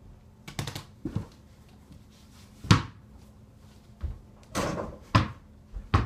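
A string of sharp thumps and knocks, about seven in six seconds, the loudest a little before the middle: a small ball striking an over-the-door mini basketball hoop's backboard and the door, mixed with feet landing on the floor after jump shots.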